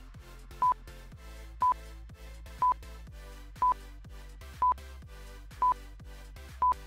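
Countdown timer sound effect: a short high beep once a second, seven times, over soft electronic background music.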